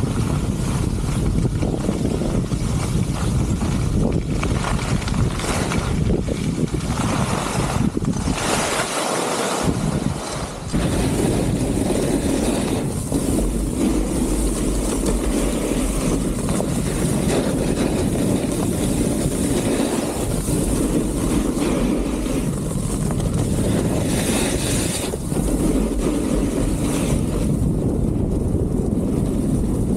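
Wind rushing over an action camera's microphone at speed, mixed with skis and then a snowboard sliding and scraping over packed snow. The sound changes abruptly about ten seconds in.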